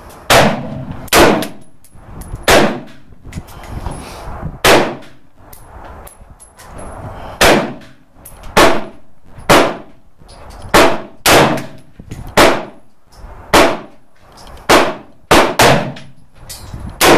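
An AR-15 rifle in 223 Wylde firing semi-automatic, about fifteen sharp shots at uneven intervals of roughly half a second to two seconds.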